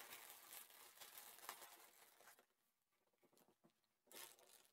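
Faint crinkling and rustling of a clear plastic packaging tray as a small toy shield is worked free of it, dying away about two and a half seconds in, with one brief rustle near the end.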